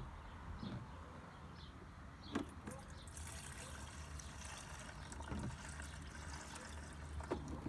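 Two-stroke fuel mix trickling faintly from a plastic jerry can into a lawnmower's fuel tank, the pouring hiss setting in about three seconds in, with a light knock just before it.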